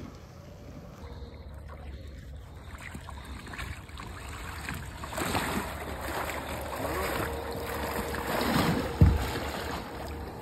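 Wader splashing and sloshing through shallow water beside a small boat, louder over the second half, with one low thump about nine seconds in.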